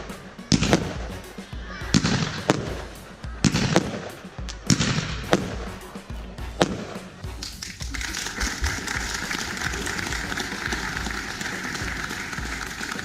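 Fireworks going off: a series of sharp bangs, each followed by crackling. About eight seconds in they give way abruptly to steady background music.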